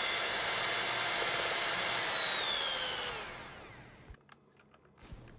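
Electric hand mixer beating a thick cream and condensed-milk batter, running steadily, then switched off about three seconds in and winding down to a stop, its whine falling in pitch.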